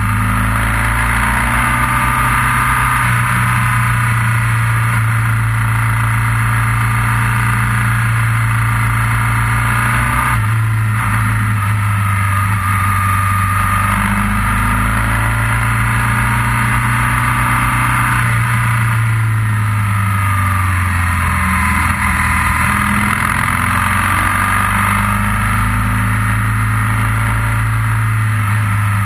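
Motorcycle engine running while riding, its pitch falling and rising with the throttle, with a brief dip about ten seconds in.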